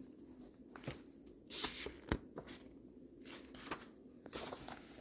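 A picture book being handled: faint paper rustles and a few soft clicks and taps, with a longer rustle about one and a half seconds in.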